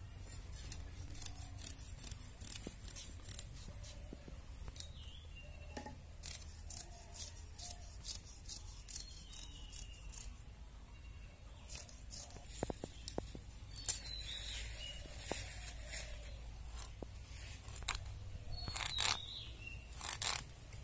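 Whole river fish scraped against the edge of a bonti, a curved blade fixed upright on a wooden base, as the fish are scaled and cleaned: quick, repeated scraping strokes that come in irregular runs.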